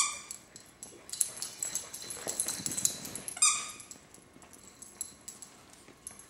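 Two dachshunds tussling over a plush toy: a short high-pitched squeak at the start and another about three and a half seconds in, with rough scuffling noise between them.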